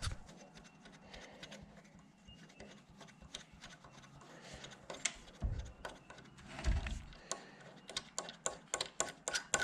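Scattered light clicks and knocks of hand tools being handled during hand-tapping work on a machine setup, with two duller thumps around the middle.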